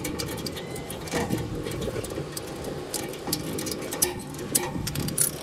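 Hand work on plastic water pipe at a pump: irregular light clicks and knocks of a hand tool and grey PVC pipe being handled and fitted.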